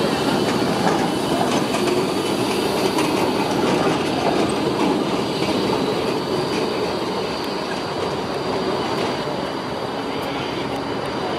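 Melbourne E2-class Bombardier low-floor tram running on curved street track, its wheels rumbling and clicking over the junction's points and crossings. A thin, steady wheel squeal from the curve rides on top, and the sound eases slightly in the second half.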